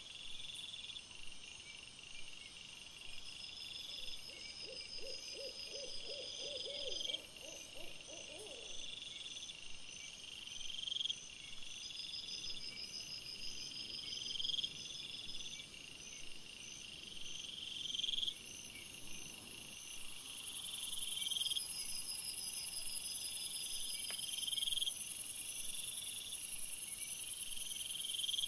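Night insects, crickets or bush crickets, chirping in steady repeating high trains. About four seconds in, a low quavering hoot runs for roughly four seconds, and from about two-thirds of the way through a high hiss grows louder.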